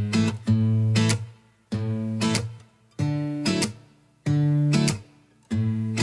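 Background music: acoustic guitar strumming chords in a stop-start rhythm, a new chord about every second and a quarter, each one held briefly and then cut short.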